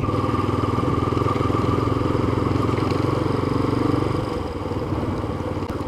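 Yamaha FZ25 motorcycle's single-cylinder engine running steadily at low speed as the bike rolls along a street. It eases off a little about four seconds in.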